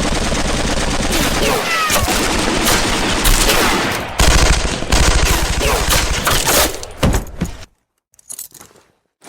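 Dense, rapid machine-gun and rifle fire, sustained and loud. It stops abruptly about seven and a half seconds in, leaving a few scattered shots or clatters.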